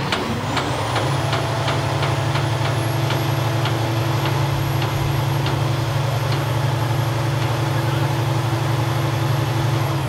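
Boom truck's engine revving up about half a second in and holding at raised speed to drive the crane's hoist as it lifts a heavy bell, with a steady high whine over the engine drone. A light regular ticking, about three a second, runs through the first half.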